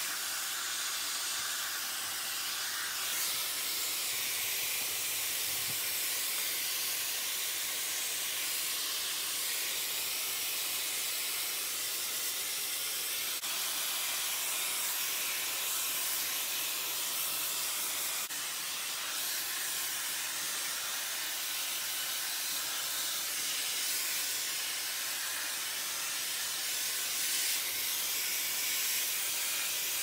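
OHJUMP T9 brushless high-speed hair dryer with its diffuser fitted, running steadily and blowing air with a continuous high hiss that shifts a little as the dryer is moved around the head.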